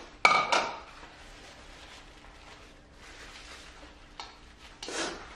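A utensil clinks against a white ceramic bowl about a quarter second in, with a brief ring, then quiet table and eating sounds. Near the end comes a short noisy nose blow into a napkin.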